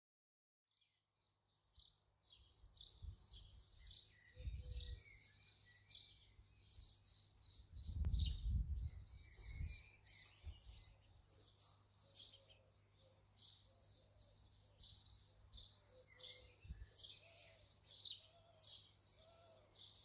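English birdsong: several songbirds chirping and trilling together, fading in about a second in. Two low rumbles come through underneath, one near a quarter of the way through and one near halfway.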